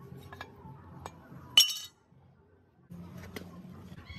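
Rusty steel parts being handled, with a few light metal clicks and then one sharp, ringing metal-on-metal clink about a second and a half in.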